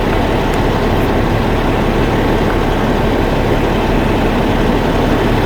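Steady, loud rumble of an idling semi-truck's diesel engine, with wind buffeting the microphone.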